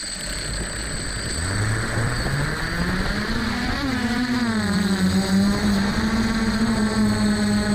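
F450 quadcopter's motors and propellers spinning up: a hum that rises in pitch from about a second and a half in, then settles into a steady hum near the end. A thin steady high whine runs above it.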